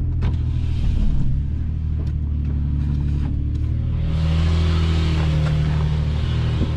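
Toyota FJ Cruiser's 4.0-litre V6 engine running steadily at low revs as it crawls over a rocky trail, heard from inside the cabin, with a few sharp clicks and knocks in the first few seconds. About four seconds in, a hiss rises over the engine sound.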